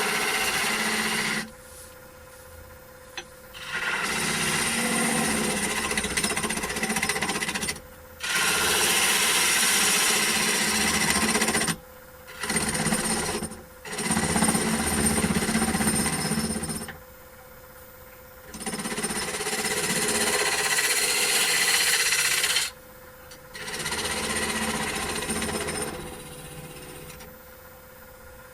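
Turning tool cutting spinning wood on a Holzmann D460FXL wood lathe, in repeated passes of a few seconds each with short pauses between them. The lathe's steady motor whine carries on through the pauses.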